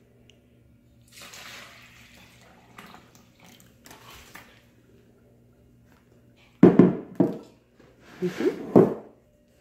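Milk poured from a glass measuring cup into a stainless steel mixing bowl of pudding mix, a soft splashing pour. Near the end come a few loud, sudden knocks and clatters.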